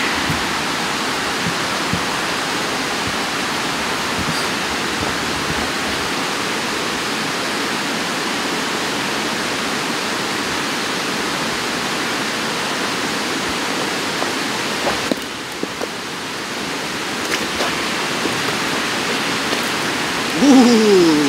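A steady, even rushing noise, with a short dip about three-quarters of the way through. Near the end come a couple of short, falling vocal sounds.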